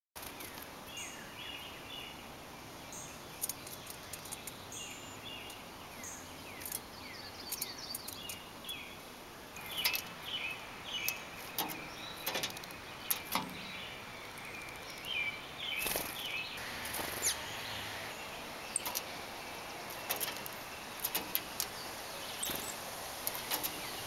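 Small songbirds chirping in short, repeated calls, busiest from about ten to seventeen seconds in, over a steady background hiss. Scattered sharp taps and clicks come in between the calls.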